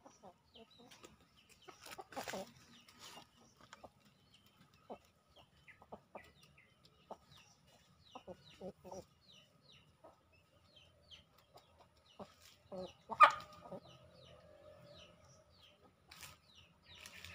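Chickens clucking off and on, with one louder, held call about thirteen seconds in, among small bird chirps and light clicks.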